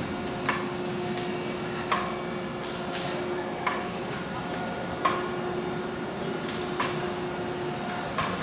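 Robotic car-body spot-welding line running: a sharp clack from the welding guns about every second and a half over a steady machinery hum.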